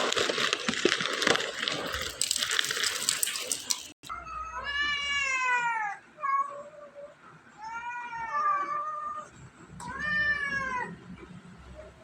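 For the first four seconds a loud rushing noise with crackles, which cuts off abruptly; then a domestic cat meows three times, long arched meows, the last one shorter.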